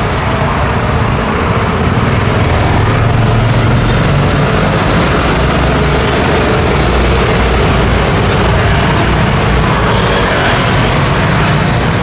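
Street traffic: motorbikes and cars passing close by, a steady mix of engine rumble and tyre noise on asphalt.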